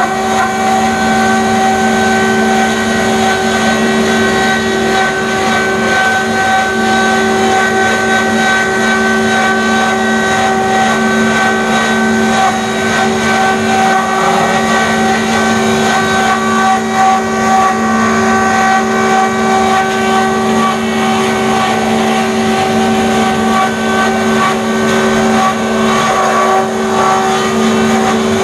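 Beaver sawdust-making machine running steadily, a loud constant hum with several high steady whining tones as it blows out sawdust.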